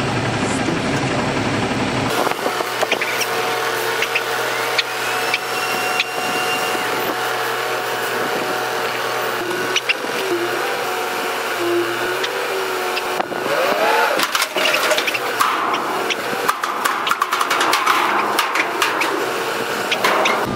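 Front-loading garbage truck running and working its hydraulic lift arms, with a steady whine that glides up in pitch about two-thirds of the way through. Then a run of clanks and rattles as the dumpster is lifted and emptied into the truck.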